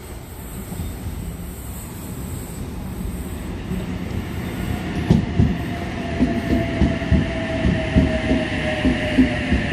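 NSW TrainLink OSCAR (H set) double-deck electric train arriving at the platform. Its rumble grows louder, and from about halfway in the wheels clack over rail joints in a steady rhythm, under a motor whine that drops slowly in pitch as the train slows.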